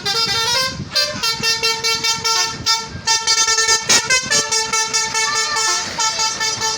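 Tour bus's telolet-style basuri musical horn playing a melody of short stepped notes, loud, with quick breaks between the notes.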